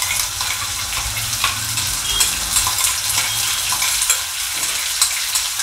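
Tomato and red chilli paste sizzling and crackling in hot oil with garlic and ginger in a frying pan, with small scrapes and taps of a spoon against a steel bowl as the paste is scraped in.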